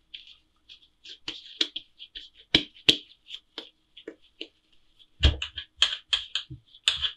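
Hands working a ball of yeast dough on a wooden tabletop: soft rubbing with short sticky clicks, then from about five seconds in a quicker run of dull pats as the dough is pressed flat with the palms.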